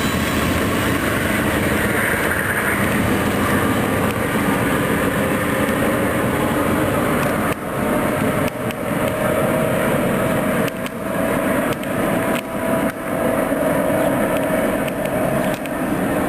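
Amtrak bilevel passenger train rolling past at close range and pulling away, a steady rush of wheel and rail noise. In the second half the noise dips briefly several times.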